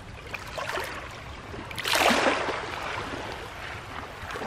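Shallow water lapping over a pebble shore, with a louder wash of water about two seconds in and a few faint clicks of stones.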